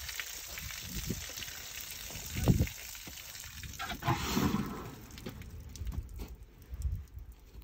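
African elephants blowing and snuffling through their trunks at the dry earth: a hissing of breath and scattering soil, broken by a few short low puffs.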